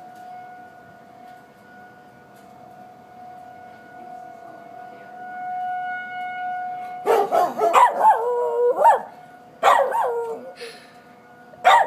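Outdoor tornado warning siren sounding a steady tone. About seven seconds in, a dog starts howling along with it in long wavering howls, breaks off, howls again and starts once more near the end.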